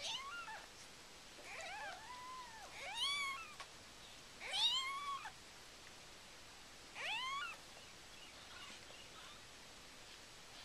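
Newborn Siamese kittens mewing: five or six short, high-pitched cries a second or two apart, dying away after about seven seconds.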